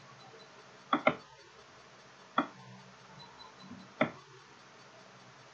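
Computer mouse clicks: a quick double click about a second in, then two single clicks about a second and a half apart, over faint room tone.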